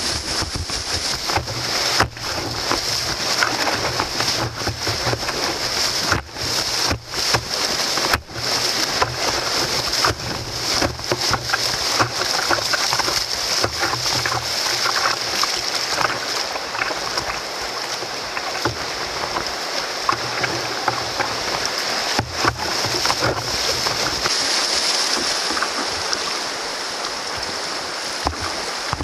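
Whitewater rapids rushing and splashing around an open canoe as it paddles through them: a steady, continuous water noise.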